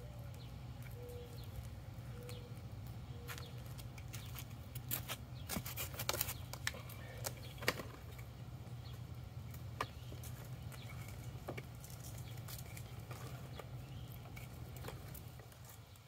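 Hand pruners snipping potato plant stems: a scattering of sharp snips, most of them between about five and eight seconds in, with leaves rustling, over a steady low hum.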